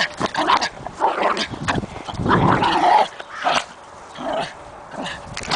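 Jack Russell terrier making excited play noises at a tennis ball, in irregular bouts that are loudest about two to three seconds in.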